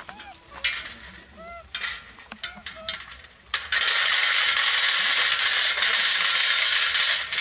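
Macaques picking peanuts off a metal tray, with light clicks and rattles and a few short squeaky calls that rise and fall in pitch in the first half. About halfway through, a loud, steady high hiss starts abruptly and covers the rest.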